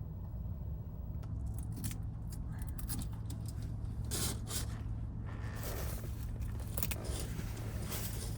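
Short clinks, scrapes and rustles of small objects being handled, over a steady low hum.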